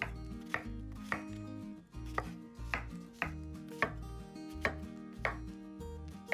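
Kitchen knife chopping food on a cutting board, a sharp cut about every half-second, over background music with held notes and a bass line.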